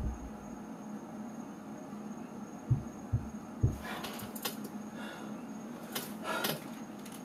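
Two soft low thumps, then a few seconds of intermittent rustling and scuffing from someone moving close by.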